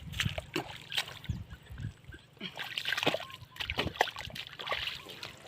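Hands splashing and sloshing in shallow water in a rice field, a string of uneven splashes with no steady rhythm.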